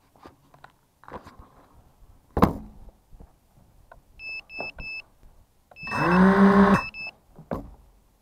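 TSX 220 FPV quadcopter being readied on the ground: handling knocks and a sharp thump, then groups of short, high electronic beeps from the quad's electronics. About six seconds in, its motors spin up for under a second with a quickly rising hum and a rush of air, then cut off.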